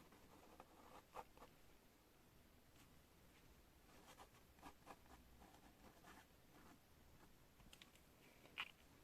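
Pen writing on paper: faint, irregular scratching strokes, with a few sharper ticks and one louder tick near the end.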